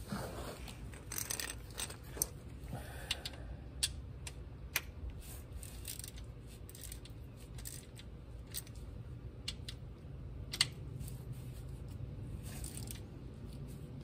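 Scattered small metallic clicks and taps of a ratchet and socket as the transmission drain plug is threaded back in and tightened, over a low steady rumble.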